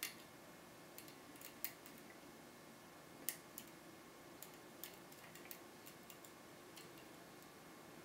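Faint, irregular metallic clicks of a lock pick and tension tool working the pins of a Medeco Original cylinder, a lock with six special pins and a sidebar. About a dozen small ticks come scattered and unevenly spaced, the sharpest right at the start, at about a second and a half, and at about three seconds.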